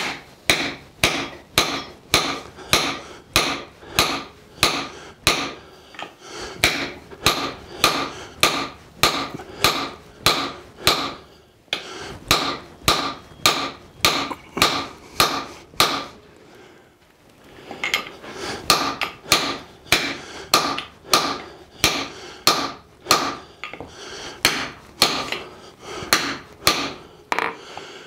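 Hand hammer striking a handled hot-cut chisel that is cutting straight down into a hot steel bar on the anvil, splitting the bar. Steady, evenly spaced blows at about two a second, with a pause of about a second a little past halfway.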